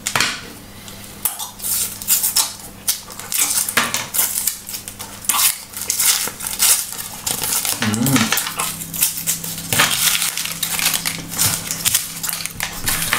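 Paper gum wrappers crinkling and tearing in rapid, irregular crackles as pieces of Hubba Bubba bubble gum are unwrapped by hand. A short voiced hum comes about eight seconds in.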